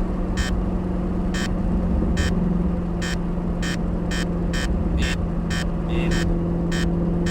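Shelby GT350R's flat-plane-crank V8 running at a steady cruise, a constant drone with no revving. A sharp clicking repeats over it, about twice a second in places.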